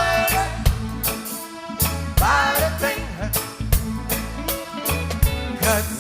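Reggae music with a steady beat: bass and drums under a sung vocal line, which comes in about two seconds in and again near the end.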